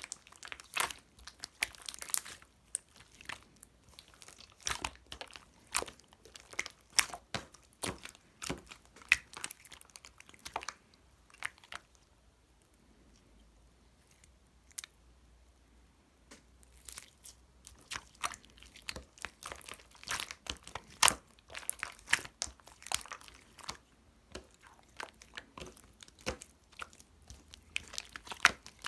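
Slime being squeezed and stretched by hand, giving off irregular sticky clicks, pops and crackles, with a quieter pause in the middle.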